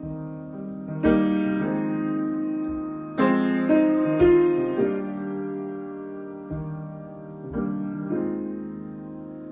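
Solo piano improvisation: slow chords struck and left to ring, with a louder run of chords between about three and five seconds in.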